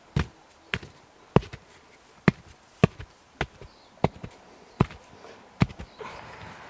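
A sharp-edged hand stone chopping into dry earth and roots, about nine separate blows at an uneven, unhurried pace, then a scraping rustle near the end.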